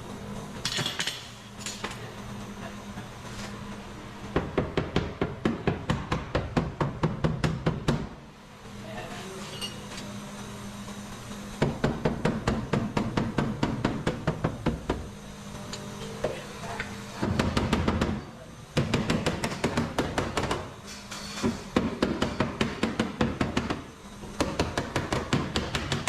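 Hammer blows on a car's damaged sheet-metal quarter panel, coming in quick runs of about four strikes a second with short pauses between runs, as the dent is knocked out by hand. Music plays underneath.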